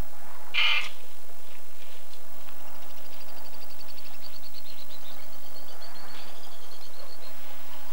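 A common raven gives one short call about a second in. Then a fast, high ticking trill runs for several seconds, dropping slightly in pitch before it stops.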